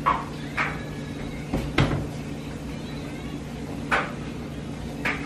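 A handful of short, sharp knocks and clacks, about six spread irregularly, over a steady low household hum.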